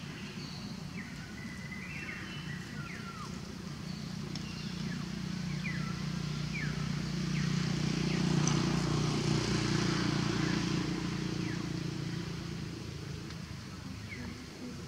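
A motor vehicle passing by: a low engine hum that builds to its loudest about eight to ten seconds in and then fades away. Birds chirp short falling notes throughout.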